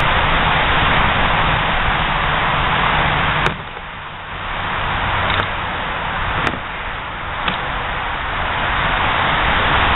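Plywood practice swords knocking against homemade shields: four sharp knocks about a second apart, starting about a third of the way in, over a steady rushing background noise.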